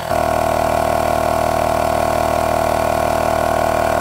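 Hoto Air Pump Pro battery-powered tire inflator running, pumping air into a nearly flat trailer tire. It makes a steady, even hum with a strong mid-pitched tone.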